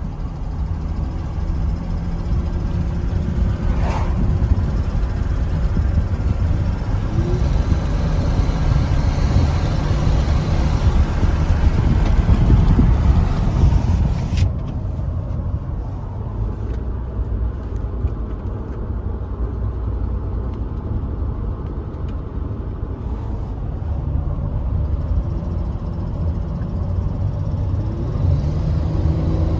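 LU3 engine running with a misfire, a steady low engine note that grows louder for several seconds before settling back about halfway through.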